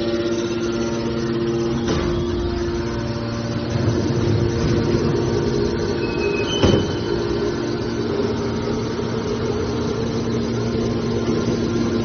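Hydraulic power unit of a scrap steel baler running: the electric motor and hydraulic pump hum steadily. Two metallic knocks come through, one about two seconds in and a louder one near the middle.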